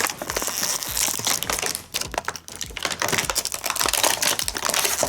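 Stiff plastic blister packaging of an action figure being handled and pulled apart, a dense run of crinkles and crackles with sharp clicks, easing off briefly about two seconds in.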